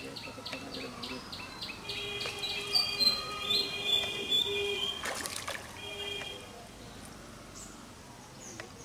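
Birds calling outdoors: a quick run of short repeated chirps, about four a second, then a few held high whistled notes. A short burst of noise comes about five seconds in.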